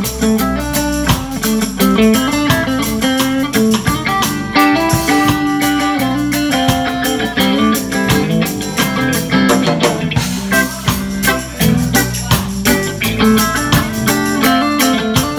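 Live reggae band playing an instrumental passage: a Stratocaster-style electric guitar playing over a drum kit with a steady beat.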